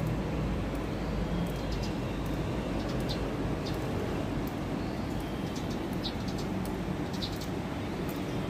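Steady low rumble of outdoor background noise, with a few faint short high chirps scattered through it.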